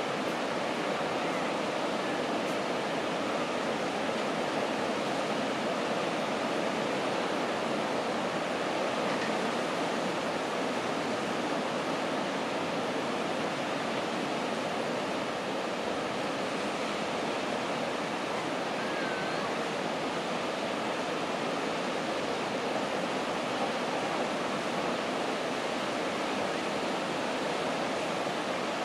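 Steady rush of surf from a rough sea breaking on the beach.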